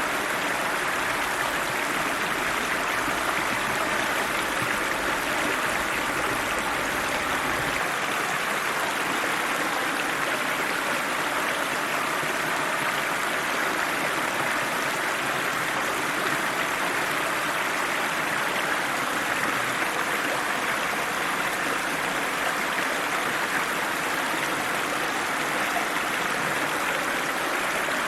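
River water running over rocks: a steady, even rushing with no break.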